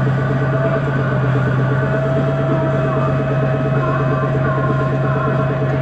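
2006 MAN Lion's City G CNG articulated bus's 228 kW MAN E2866 gas engine running steadily, heard on board, with a steady higher whine joining about two seconds in.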